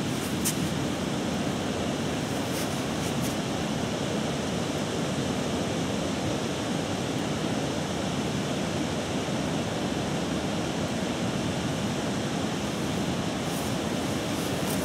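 Steady rush of fast-flowing river water, an even noise without change.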